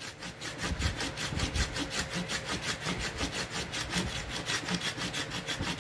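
A hafted stone scraper shaving a freshly split green sapling bow stave down to an even thickness, scraping in quick, even strokes, about six a second.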